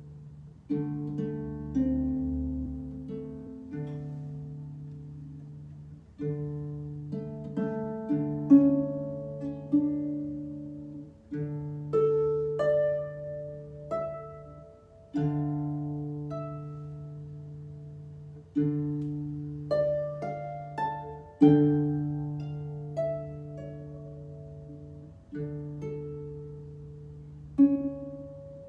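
Harp played slowly and meditatively. A low bass note is plucked every few seconds and left to ring, with single melody notes picked above it.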